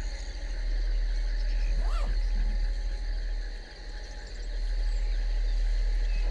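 A steady chorus of insects or frogs over a strong, low, pulsing drone, with one brief rising-and-falling glide about two seconds in.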